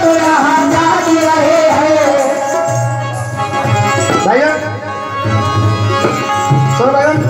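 Qawwali: a lead singer sings gliding phrases into a microphone over tabla accompaniment, whose deep bass strokes repeat throughout.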